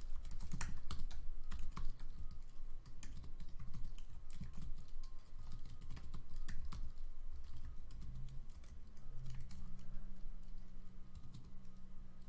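Typing on a computer keyboard: a steady run of irregular key clicks, sometimes in quick flurries, with short pauses between.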